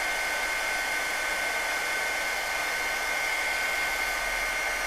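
Handheld craft heat tool blowing steadily: a fan rush with a steady high whine, drying paint on a paper tag.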